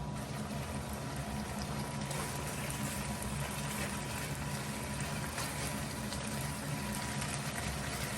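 A pot boiling steadily on a stove, with a low steady hum underneath.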